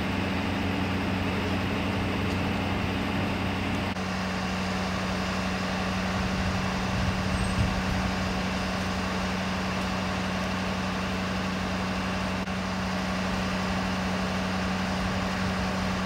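Idling emergency-vehicle engines with steady street noise: a constant low engine hum that shifts to a different pitch about four seconds in.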